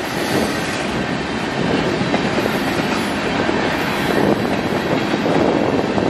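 Freight train cars (covered hoppers and a tank car) rolling past, steel wheels clicking over the rail joints above a steady rumble.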